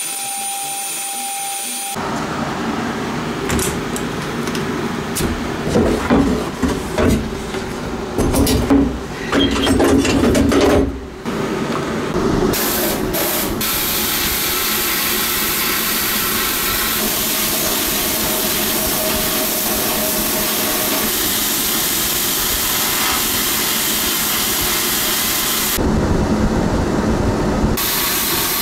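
Pressure washer jet spraying a grimy brake and clutch pedal assembly: a hiss that surges and drops unevenly at first as the spray strikes the metal, then runs steadily for the second half.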